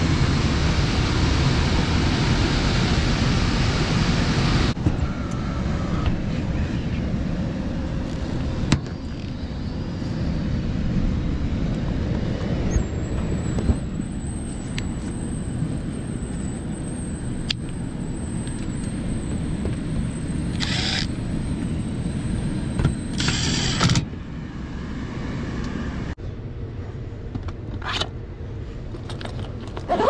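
Attic air handler's blower running, a steady rush of air with a low rumble, with the electric backup heat on. A thin high whine comes in partway through, and there are a few short rustles and knocks from handling gear.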